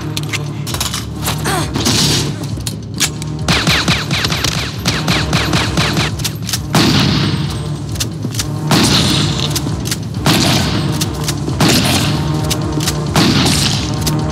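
Movie gunfight sound effects: rapid gunshots with heavy pump-action shotgun blasts every second or two, each blast ringing out briefly.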